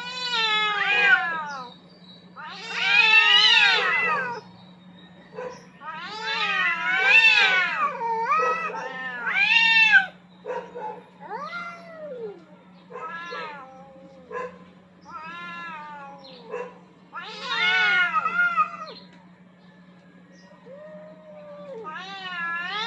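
Two domestic cats caterwauling at each other in a dominance standoff: a run of long, wavering yowls that rise and fall in pitch, one after another with short pauses. A steady low hum runs underneath.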